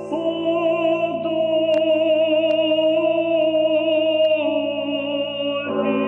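Background music: a sung melody in long held notes with vibrato, with a new note coming in near the end.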